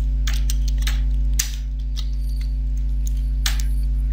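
Computer keyboard keystrokes: a string of short, irregular taps as a word is typed, the firmest about a second and a half in. Under them runs a steady, low electrical mains hum.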